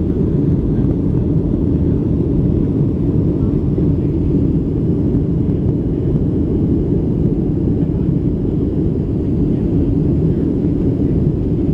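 Cabin noise of a Boeing 737 climbing after takeoff, heard from a window seat. The engines and airflow make a steady, loud, low noise that holds even throughout.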